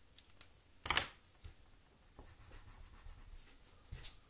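Faint handling sounds on a wooden tabletop: a felt-tip pen set down, with a sharp knock about a second in, a few small clicks and a light rustle, and another knock near the end.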